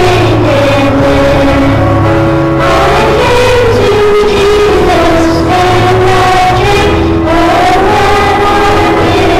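Voices singing a hymn together with instrumental accompaniment: long held notes that step and glide in pitch over a steady bass.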